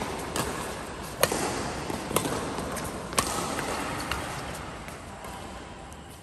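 Badminton rackets striking a shuttlecock in a doubles rally: four sharp hits about a second apart, echoing in a large hall, with no more hits after about three seconds in.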